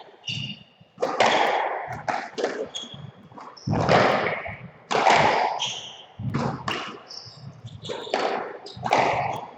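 Squash rally: the ball is struck by rackets and smacks off the court walls in sharp, echoing hits about once a second, with short high squeaks from shoes on the court floor.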